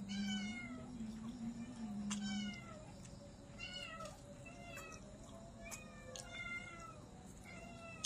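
A cat meowing over and over, about six short meows, each falling in pitch.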